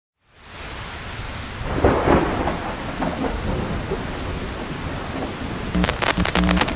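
Thunderstorm sound effect: steady rain with a rumble of thunder about two seconds in, then a crackling burst near the end.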